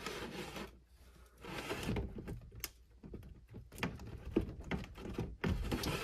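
A stainless steel DuraVent chimney pipe being worked into a wall thimble: stretches of scraping, with a few sharp metal knocks.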